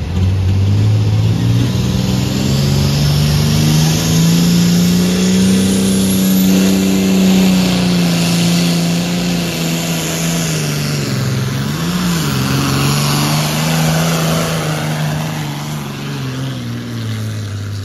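Diesel engine of a John Deere Super Farm pulling tractor at full power under load during a pull. Its pitch climbs for the first several seconds and then slowly sags, with a brief rev flare about twelve seconds in, and it drops away near the end as the run finishes.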